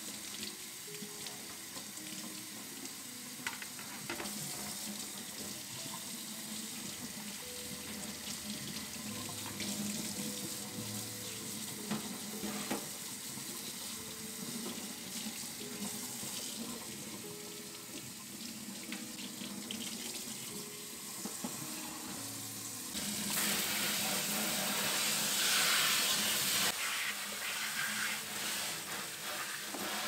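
Kitchen faucet running water over dishwasher parts, the spray arm and filter, in a stainless steel sink, splashing as they are rinsed. The water grows louder for a few seconds about two-thirds through.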